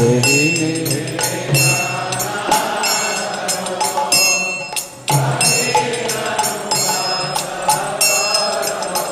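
A congregation singing a devotional hymn together in chorus, answering the lead singer's line. Hand cymbals strike about once a second and a drum keeps the beat.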